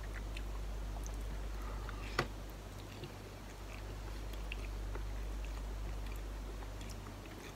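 A person chewing a mouthful of ramen noodles, with small wet mouth clicks and one sharp click about two seconds in. A steady low hum runs underneath.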